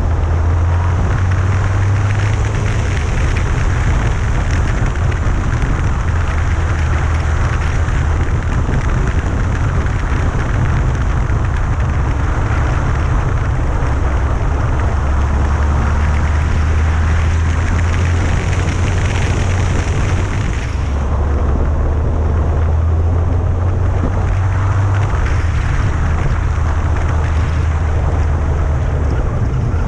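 Yamaha FJR1300 motorcycle underway: its inline-four engine runs steadily under a continuous rush of wind and road noise on a bike-mounted action camera. A high hiss drops away about twenty seconds in.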